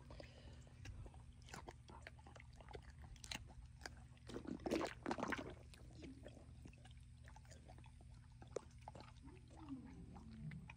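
Scattered wet clicks, smacks and small splashes from a black big cat with its mouth at the water in a shallow pool, busiest about four to five seconds in.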